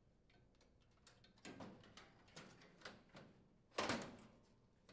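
Metal control panel of a gas range being handled and fitted into place: a few faint taps and scrapes, then one louder clunk about four seconds in as it seats on the front brackets.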